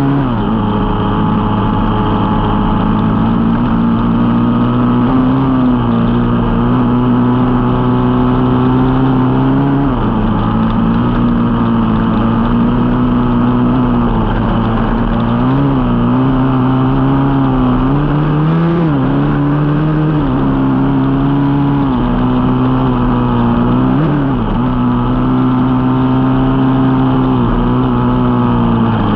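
Dirt bike engine running hard and steady as the bike is ridden along a sandy track, its revs dipping and picking up again briefly about four times.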